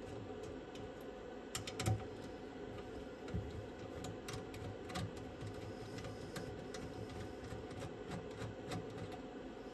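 Small screwdriver working screws out of a cassette deck's metal chassis: scattered light clicks and scrapes, with a cluster of louder metallic clicks about two seconds in, over a steady background hum.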